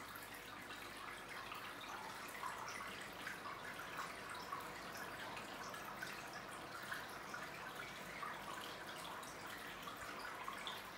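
Aquarium water trickling and splashing at the surface where the tank's filter stirs it: a steady soft wash with many small drips and plinks.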